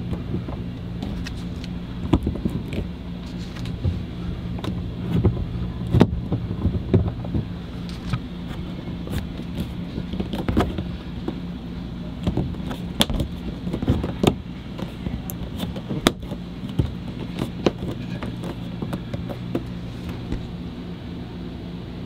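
Handling sounds of a plastic two-port Ethernet wall plate and its cables being pushed into place against the wall: irregular light taps, clicks and rubs over a steady low hum.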